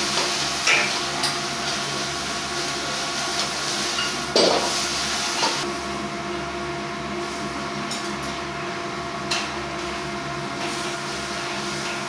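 Restaurant kitchen and dining-room sound: a steady hum of equipment with scattered clinks and clatter of dishes and utensils, the loudest about four seconds in.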